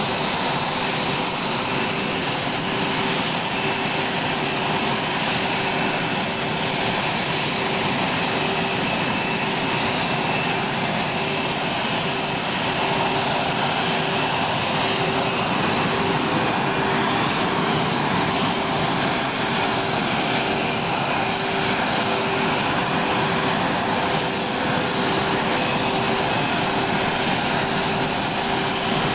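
Steady jet aircraft engine noise: a constant rushing whine with a high steady tone.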